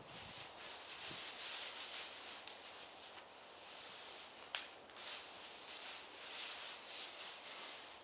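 Rustling and rubbing in straw bedding as a Clydesdale foal and a person shuffle and jostle against each other, with a brief sharp click or squeak about four and a half seconds in.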